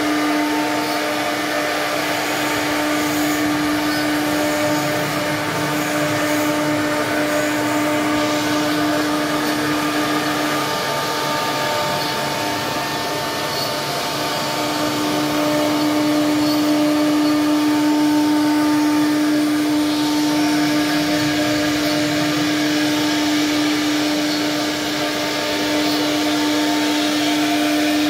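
CNC router spindle running with a steady high whine over the noise of the bit carving a mahogany panel. The whine drops back for a few seconds about a third of the way in, then returns.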